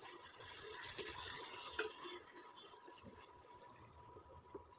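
Wooden spatula stirring chicken and vegetables in a non-stick kadai, with a faint frying sizzle and a few light knocks and scrapes of the spatula on the pan.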